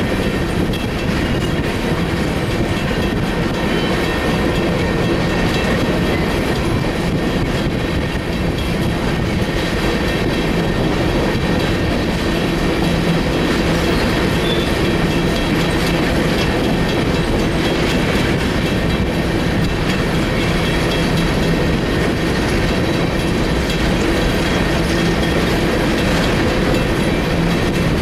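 Loaded coal train's hopper cars rolling steadily past, steel wheels running over the rails with a continuous rolling clatter.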